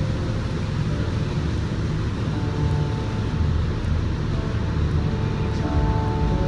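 Steady low machine rumble with music playing over it.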